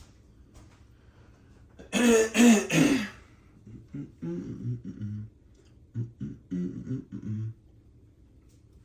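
A man's voice: a loud burst of vocal noise about two seconds in, then a run of short, low hummed or mouthed syllables in a loose rhythm, beatbox-like.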